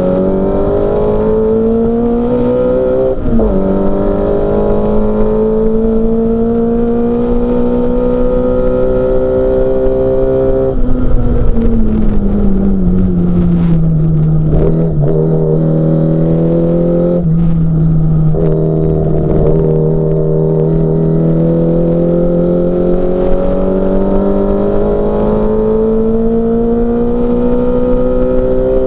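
Mini Cooper S race car's four-cylinder engine at full throttle, its note climbing with a quick upshift about three seconds in. Around ten seconds in the pitch drops as the car slows for a corner and holds low for a few seconds. It then changes gear again just past halfway and pulls steadily back up.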